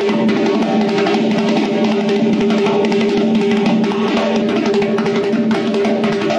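Hand-played frame drum, struck rapidly with the fingers and palms in a dense, continuous run of strokes.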